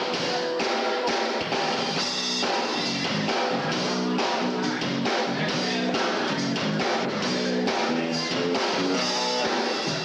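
A rock band playing live: electric guitar and drum kit in an instrumental passage.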